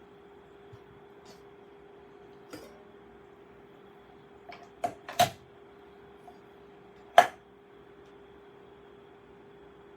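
A few short knocks and clicks of things being handled, the loudest about seven seconds in, over a faint steady hum.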